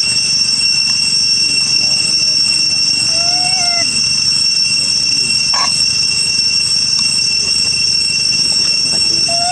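Steady, high-pitched drone of cicadas, with a short rising-and-falling macaque coo call about three and a half seconds in and another near the end, and a single click a little after the middle.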